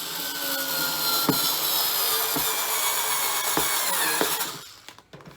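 Power drill driving a screw into a wooden board, the motor running continuously and its pitch sagging slowly as the screw goes in, then stopping near the end.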